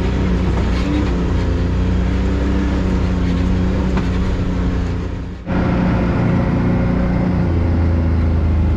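Side-by-side UTV engine running steadily as it drives along a dirt trail, heard from inside the open cab. The sound dips and breaks off about five seconds in, then carries on at a similar steady pitch.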